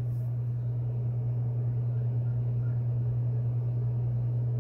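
Steady low hum with faint hiss: the constant background hum of the recording, with no speech.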